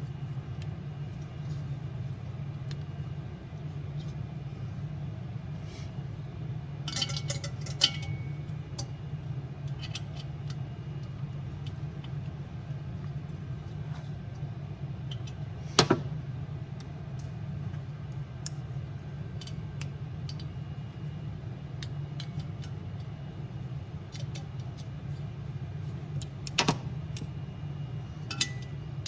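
Scattered small metallic clinks and taps from tools and heater parts being handled during reassembly, with a sharp knock about halfway through and another near the end, over a steady low hum.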